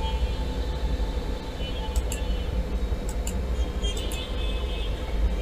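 Steady low rumble of road traffic, with faint car-horn toots and a few short clicks.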